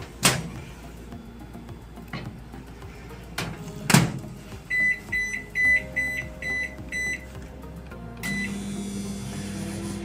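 Panasonic convection microwave being loaded and started: the door clicks open, then shuts with a louder clunk about four seconds in. A quick run of short keypad beeps follows as the six-minute time is set, one more beep starts it, and the oven then runs with a steady low hum.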